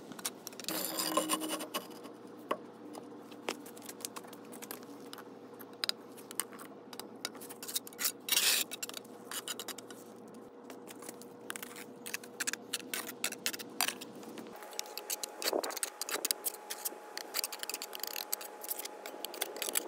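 Steel mason's trowel scraping and spreading wet mortar on a concrete footing and around cement blocks: a run of irregular scrapes and sharp clicks of metal on concrete and block.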